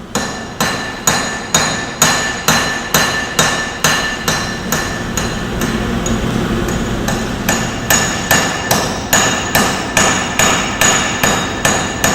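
Blacksmith's hammer forging metal on an anvil: a steady rhythm of about two blows a second, each with a bright metallic ring.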